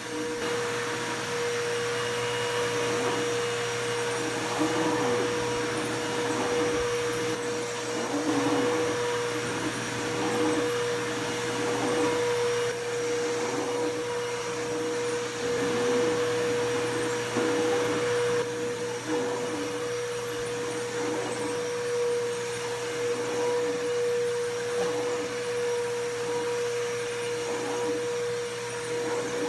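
Bissell PowerForce Bagless upright vacuum cleaner running, a steady motor whine with rushing air that swells and fades about once a second.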